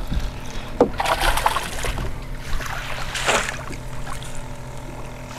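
Wind rumbling on the microphone and water washing against a fishing boat's hull, with a few short splashy swells and a faint steady hum underneath.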